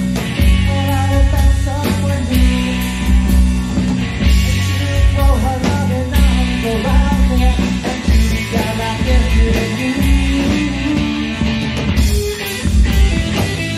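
Live rock band playing: a lead singer over electric guitars, bass and drum kit with a steady beat.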